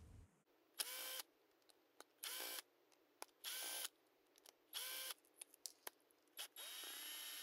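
A small cordless power driver spins out T10 Torx screws from a plastic tool housing. It makes about five short runs of motor whine, each rising in pitch as the motor spins up, with the last run a little longer, and small clicks of handling in between.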